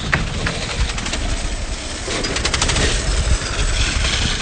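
Minibike engine running hard as the bike heads for the jump, with a burst of rapid popping a little past halfway.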